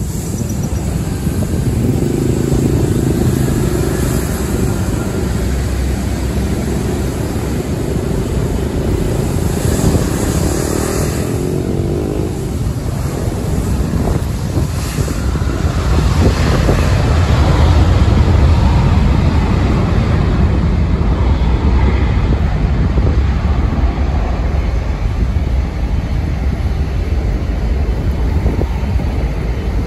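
Sukhoi Superjet 100's twin SaM146 turbofans at takeoff power during the takeoff roll: a loud, steady jet rumble that swells to its loudest about sixteen seconds in, with wind buffeting the microphone.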